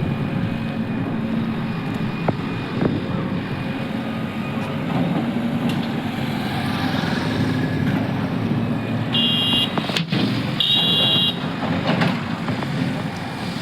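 Diesel engine of a demolition bulldozer running steadily, with two short high beeps about nine and eleven seconds in.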